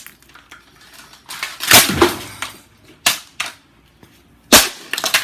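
Plastic housing of a Eureka handheld vacuum being smashed apart: loud, sharp hits with cracking, the biggest about two seconds in, then two more about a second and a half apart.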